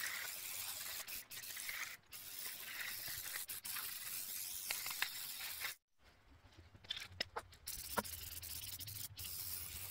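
Aerosol spray can hissing as a finish coat is sprayed onto a chainsaw-carved wooden bear, cut off abruptly several times. In the second half it is quieter, with a few light clicks.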